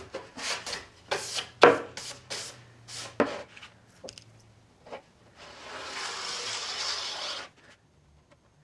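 Quick rubbing strokes on wood, about eight in the first three seconds, then a steady hiss for about two seconds that cuts off suddenly.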